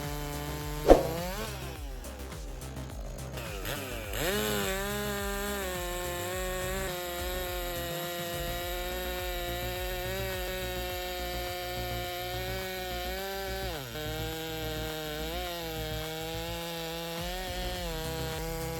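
Chainsaw running under load while cutting through wood, its engine pitch holding mostly steady with a dip near the end. A sharp knock about a second in is the loudest moment.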